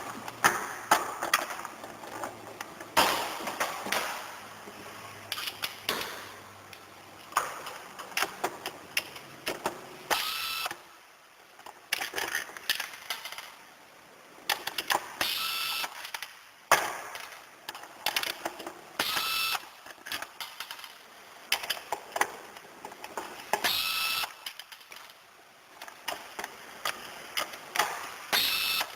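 Irregular clicks, taps and short rattles of small hard parts being handled and taken apart by hand, some clicks ringing briefly.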